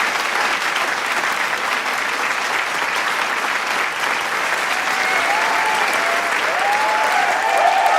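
Large crowd applauding steadily, with scattered cheers and shouts rising over the clapping in the second half.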